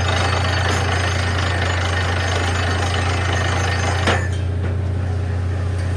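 Borewell drilling rig running, a steady heavy engine drone under a dense noisy hammering. The noise cuts off suddenly about four seconds in, leaving only the engine drone.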